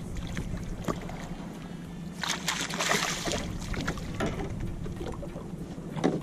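Fishing boat on the river: a steady low hum under wind and water noise, with scattered knocks and a louder rush of noise from about two to three and a half seconds in.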